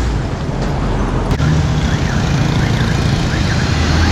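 Busy street traffic, mostly motor scooters with some cars, running steadily past. A high warbling tone repeats again and again in the background from about a second and a half in.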